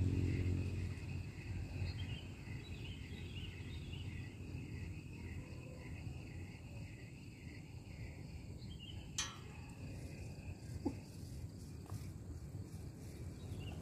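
Outdoor ambience: low wind rumble on the microphone, with a run of regular high chirps, about two or three a second, over a faint steady high trill through the first half. A single sharp click about two-thirds of the way in.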